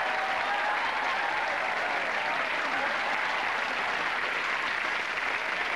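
Studio audience applauding steadily, with a few voices calling out under the clapping.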